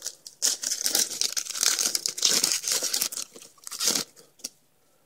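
Foil wrapper of a Topps baseball card pack being torn open and crinkled, in uneven rustling bursts that stop about four seconds in.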